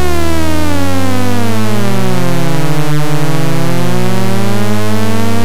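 Synthesized data sonification of a sprinter's acceleration and velocity over a 100 m dash: many electronic tones sounding at once, some gliding down in pitch while others glide up so that they cross, over a steady low hum.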